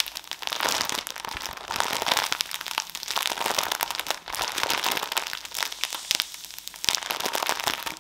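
Plastic wrap around a pack of kitchen sponges crinkling and crackling as the pack is squeezed and handled close to the microphone, a dense, irregular crackle.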